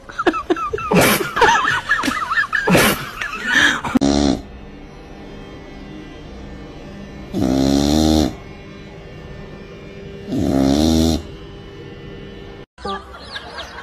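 A cat snoring loudly: three long, deep snores about three seconds apart. They follow a few seconds of sharp knocks and squeaky calls.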